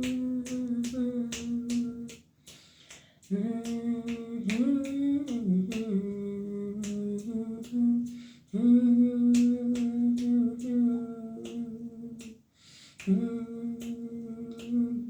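Unaccompanied voice humming a slow wordless gospel melody in long held notes, in four phrases with short breaths between, while finger snaps keep a steady beat about twice a second.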